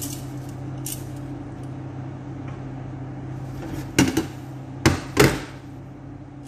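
Metal kitchen tongs knocking against a steel cooking pot, three sharp clanks about four to five seconds in, over a steady low hum.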